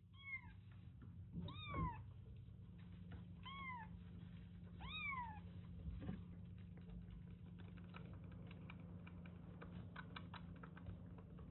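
A young kitten mewing four times: short, high calls that rise and fall, spaced a second or two apart. A run of faint clicks follows near the end.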